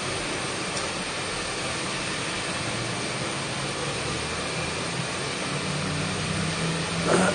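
Steady background hiss and low hum, like air conditioning or distant traffic. Near the end comes a brief louder sound that falls in pitch.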